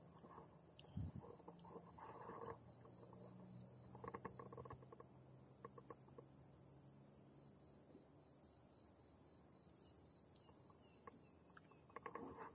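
Faint insect chirping in an even rhythm, about four high pulses a second, in two long runs with a pause between, over soft clicks and rustles of a fishing line and hook being handled.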